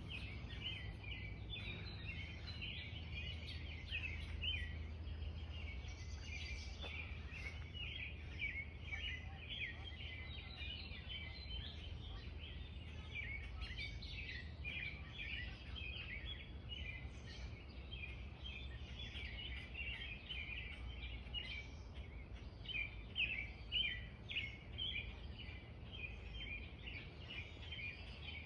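A chorus of small birds chirping continuously, many quick calls overlapping, over a steady low background rumble.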